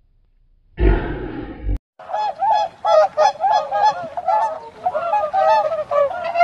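A lion gives one short low roar about a second in, which cuts off abruptly. Then a group of waterfowl, geese or swans, honk over and over, several calls a second and overlapping.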